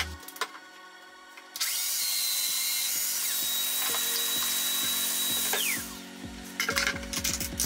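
An electric power-tool motor runs at speed with a steady high whine for about four seconds, then winds down quickly. Clicks and knocks of handling come before and after, over background music with a steady beat.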